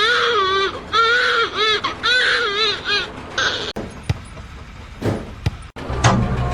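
A high, wavering crying voice, about five cries in quick succession over three seconds, followed by a few sharp clicks.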